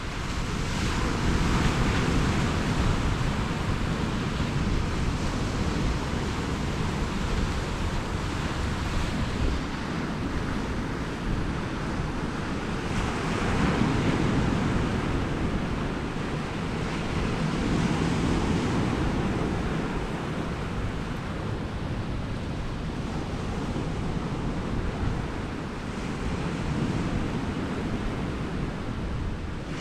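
Sea surf washing against rocks, rising and falling in slow surges every several seconds, with wind buffeting the microphone.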